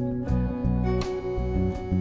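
Instrumental background music with plucked notes over a moving bass line.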